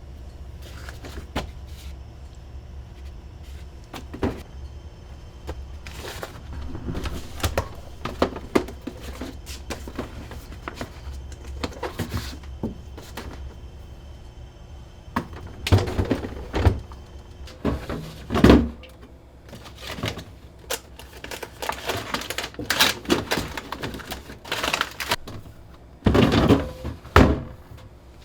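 Household handling sounds: items and containers being moved and set down, with irregular knocks and clunks that come thicker in the second half, over a steady low hum.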